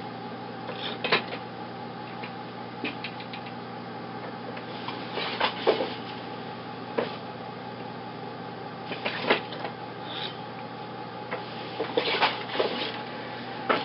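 Wooden hand loom being woven on: sharp wooden clacks and knocks of the shuttle, beater and shafts come in clusters about every three to four seconds, over a steady background hum.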